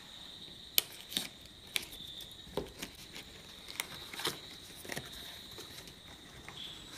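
A small cardboard box being opened by hand: a string of short clicks, taps and scrapes as the paperboard flaps and inner tray are worked loose and slid out. A faint steady high-pitched tone sits in the background.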